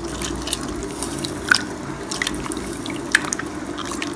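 Hand squeezing and mashing tomatoes, curry leaves and coriander in a pot of watery rasam: liquid squelching, sloshing and dripping, with sharper splashy drips about a second and a half in and again about three seconds in.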